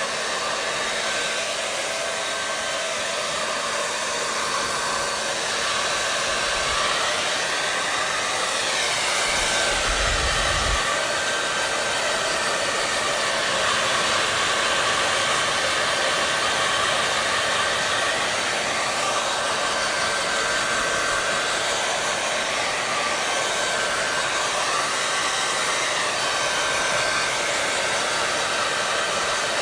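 Electric hair dryer running steadily: a continuous rushing blow of air with a faint steady whine and low hum. A brief low rumble comes about ten seconds in.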